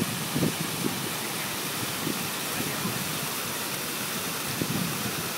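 A steady rushing hiss, even throughout, with a few faint low sounds in it.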